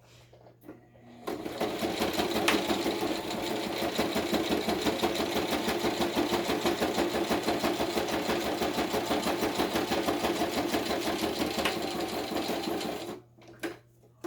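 Electric sewing machine running at a steady, fast pace, stitching a zigzag stitch. It starts about a second in and stops shortly before the end.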